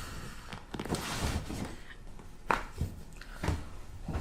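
Chiropractic adjustment: rustling as the patient is positioned, then a few short sharp pops and knocks. The loudest comes about halfway through and another near the end.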